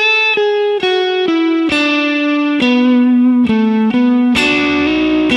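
Electric guitar playing a B minor pentatonic lick: a half-step bend up to the target note, a run of single notes stepping down, a double stop, then a hammer-on to the major third resolving to the root B.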